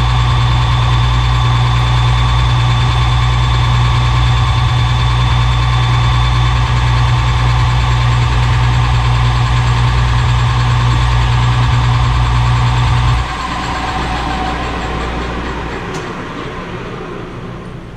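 Metal lathe running with a steady electric-motor hum while turning a spacer. It is switched off about 13 seconds in, and the hum drops sharply and fades as the lathe spins down.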